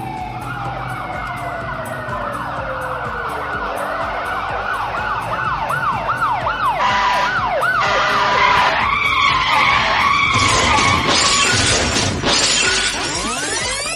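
Electronic siren sound. It opens with a slow falling tone, then wavers up and down, faster and faster, about halfway through, and turns louder and harsher in the last few seconds.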